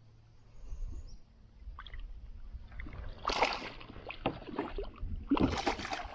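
Two splashes, about two seconds apart, as a hooked largemouth bass thrashes at the surface while it is reeled up to the kayak, with a few light knocks in between.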